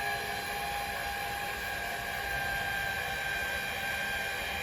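Steady electric whir with a high whine from the powered-on remote-control lawn mower, its brushless motors running before the gasoline engine is started.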